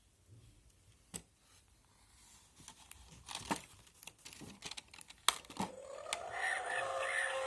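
Stiff pages of a pop-up book being handled and turned: paper rustling and crinkling with several sharp clicks. About six seconds in, the book's built-in sound module starts playing a recorded sound that goes on steadily.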